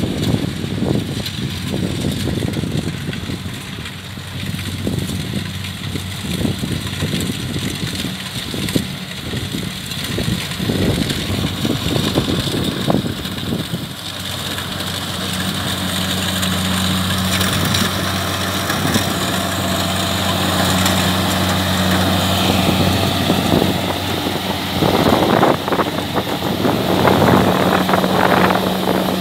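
Kubota DC-70 combine harvester's diesel engine running at a steady speed, getting somewhat louder about halfway through, with rougher mechanical noise from the machine near the end.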